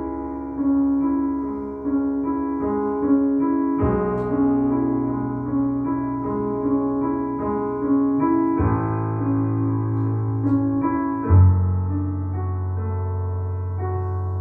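Solo piano playing: a melody moves over held bass notes that change every few seconds.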